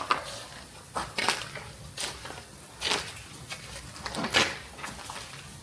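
A few irregular knocks and scrapes, roughly one a second, over a low background hum.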